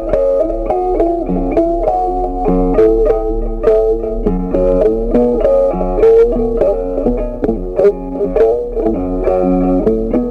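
Background music: a melody of plucked notes played steadily throughout.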